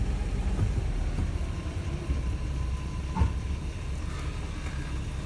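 Mercedes-Benz W124 500E on the move, a steady low rumble of running and road noise, with one sharp clunk about three seconds in: the abnormal noise from the rear suspension.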